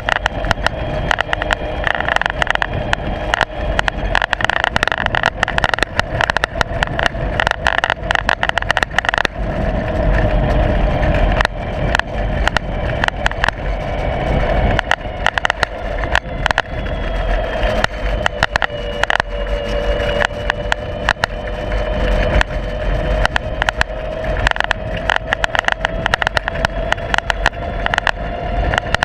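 Loose camera mount rattling and knocking without pause on a moving ride, over a steady drone whose pitch drifts slowly up and down.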